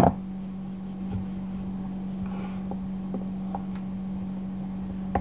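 Steady low hum, with a sharp click at the start and a few faint light knocks of a wooden rolling pin on a wooden board as a slice of bread is rolled thin.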